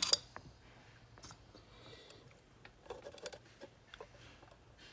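Faint, scattered small clicks and taps of hand tools and small parts being handled on a soldering bench: a few sharp ticks at the start and a small cluster of taps about three seconds in.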